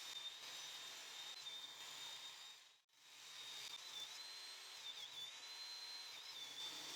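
Near silence: a faint hiss with a thin, high-pitched whine that wavers slightly in pitch, broken by a brief dropout about three seconds in. No saw or other tool is heard cutting.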